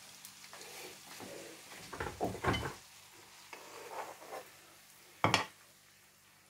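Creamy spaghetti with scampi being tipped out of a non-stick frying pan onto a ceramic plate: soft sliding and scraping of pasta against the pan, a louder run of scrapes about two seconds in, and one sharp knock of the pan against the plate a little past five seconds in.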